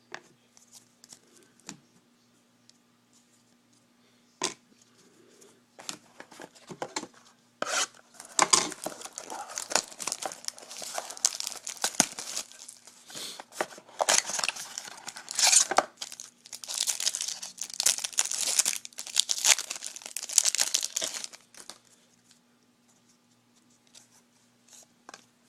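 A trading card pack's wrapper being torn open and crinkled, in a long stretch of loud crackling from about eight seconds in to about twenty-one seconds, after a few light clicks and handling sounds.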